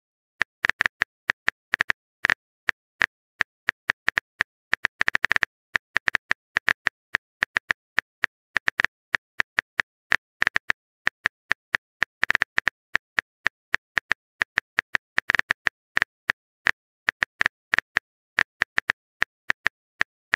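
Smartphone keyboard typing sound effect: short, sharp taps at an uneven pace, a few a second, with quicker runs of taps now and then.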